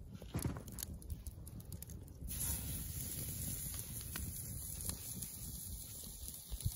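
Thick raw steak laid with tongs onto a steel mesh grill grate over a wood fire. A steady sizzling hiss starts about two seconds in, with scattered sharp clicks.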